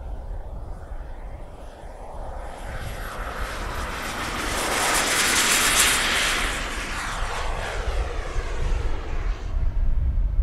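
Small turbine jet engine of a radio-controlled Aermacchi MB-339 model at full power on its takeoff run: a high whine and jet rush that swell loudly as it passes close, about five or six seconds in, then fade as it climbs away.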